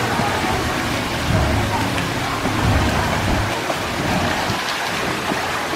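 Pool water splashing and sloshing as a steady rush of noise, with faint voices under it and two stretches of low rumbling, about a second in and again around the middle.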